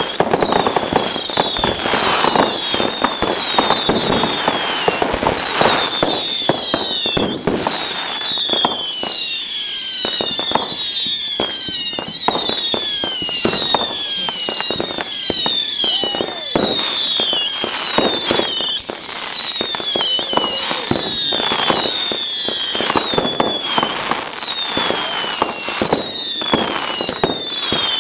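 Fireworks going off in rapid succession: a dense run of bangs and crackles with many overlapping short whistles, each falling in pitch.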